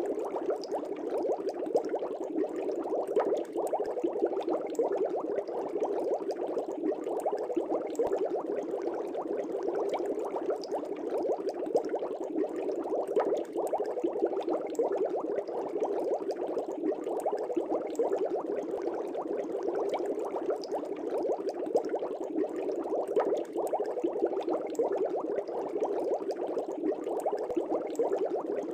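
Air bubbles streaming through the water of a fish tank: a steady, dense bubbling made up of many small pops.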